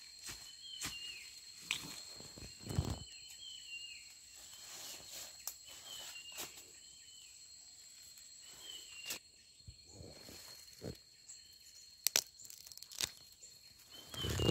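Footsteps crunching through dry bamboo leaf litter, with sharp snaps of twigs and stems. Behind them run a steady high insect drone and a short call repeated about once a second.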